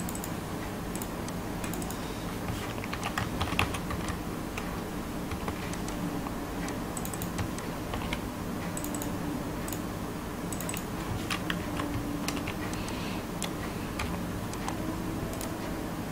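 Computer keyboard typing: keys clicking in short, uneven bursts, with a low steady hum underneath.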